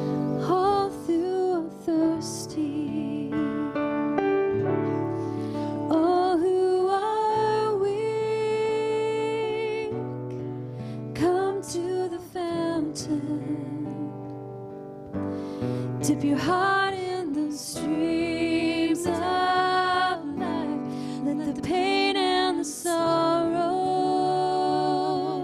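A slow worship song performed live: a woman singing a sustained melody over acoustic guitar and piano.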